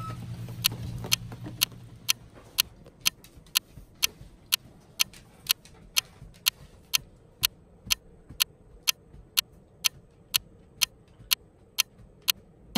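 Clock ticking steadily, about two ticks a second: a clock-tick sound effect marking the passage of time. Low background music fades out over the first two seconds.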